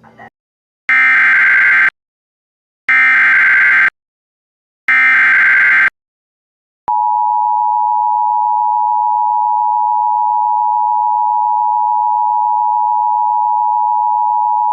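Emergency Alert System header: three one-second bursts of SAME digital data tones, a second apart, then the steady two-tone EAS attention signal. The attention signal starts about seven seconds in and holds for about eight seconds, marking the start of an alert, here a severe thunderstorm warning.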